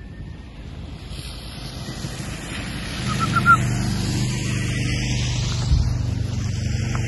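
A vehicle engine running steadily with a low hum, which comes in about three seconds in, over wind noise on the microphone. A quick run of four high chirps sounds just after the hum starts, and a single dull low thump comes near the end.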